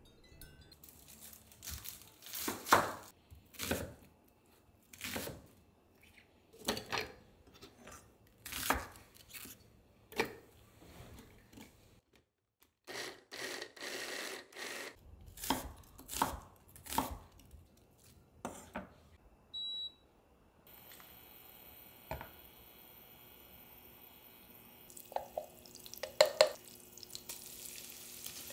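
Onion being chopped in the chopper bowl of a Braun multi hand blender, heard as a series of short chopping bursts about a second apart. After that comes a faint steady electric hum with high tones and a couple of sharp clicks near the end.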